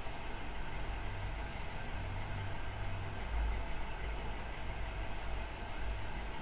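Steady low rumble under a faint hiss, with no distinct events.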